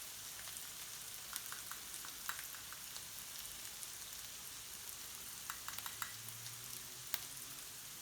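Onions frying in oil in a pan as the spices go in: a steady sizzle with scattered light clicks and pops.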